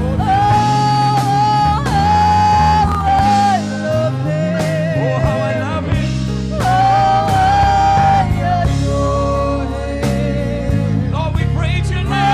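Gospel worship song: a singer holds long notes with vibrato over a band accompaniment with bass, guitar and drums.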